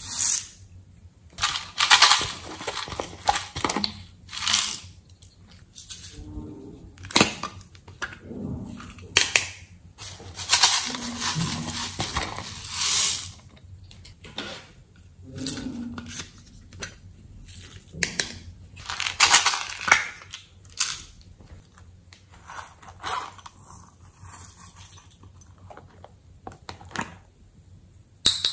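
Glitter and sequins shaken out of a container and sprinkled onto slime, heard as irregular bursts of hissing rattle, each a second or two long.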